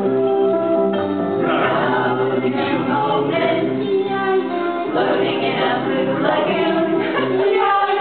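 A group of men and women singing a song together in chorus, holding notes that change every second or so.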